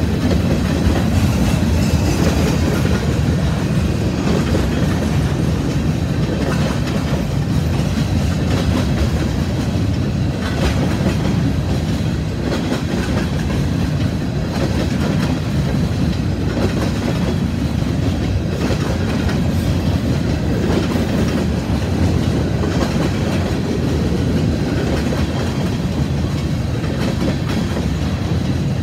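Freight train of covered hopper cars rolling steadily past: a continuous low rumble of steel wheels on the rails, with scattered clicks as the wheels pass over rail joints.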